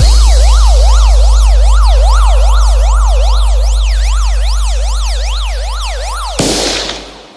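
DJ sound-check track: a very loud, steady deep sub-bass tone under a synthesized siren that sweeps up and down about two and a half times a second. Near the end the siren cuts off and a burst of noise swells in, then fades out with the bass.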